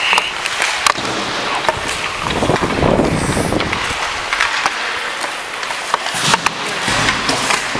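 Hockey skates carving and scraping on rink ice, with scattered sharp clacks of sticks and pucks.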